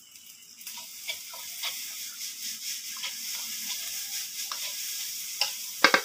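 Fried rice sizzling in a wok while it is stirred, with scraping and tapping of the stirring utensil against the pan. The sizzle comes up under a second in, and a few sharper, louder knocks come near the end.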